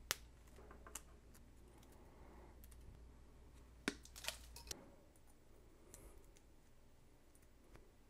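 Quiet handling of a Cat6 network cable and its wire pairs, broken by a few sharp clicks: one just at the start, another about a second in, and three snips close together near the middle as a small hand cutter trims the cable.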